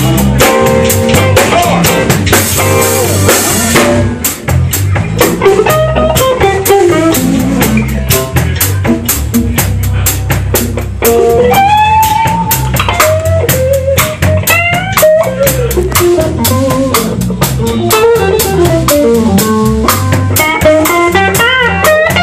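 Live blues band playing an instrumental passage: a lead guitar solo with string bends over drums and bass, with a cymbal wash about two seconds in.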